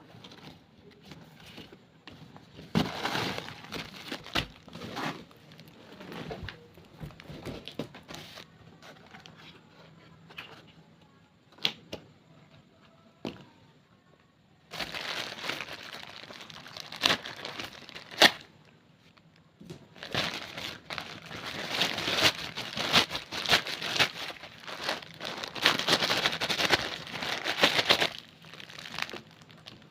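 Plastic packaging crinkling and tearing in irregular handled bursts, with a few sharp clicks; quieter for a stretch in the middle and busier toward the end.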